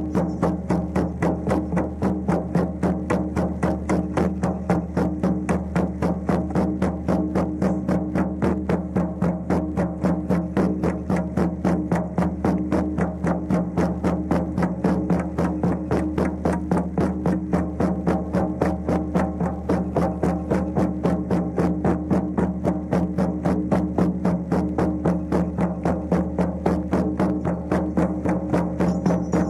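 Many frame drums beaten together in a steady, fast, even beat over a steady low drone.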